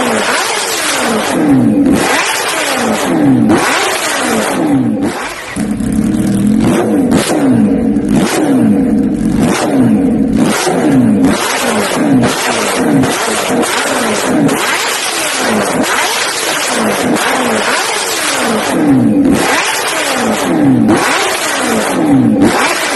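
Motor vehicle engines, loud and continuous, with the engine note falling in pitch again and again, about once a second.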